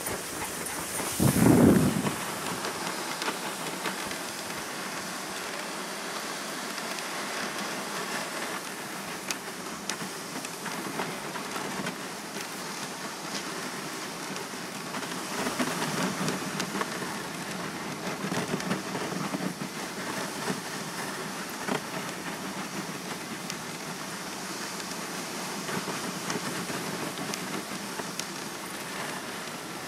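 Dog sled runners gliding over snow behind a pulling dog team: a steady, even rushing noise with a few mild swells. A brief low thump about a second and a half in.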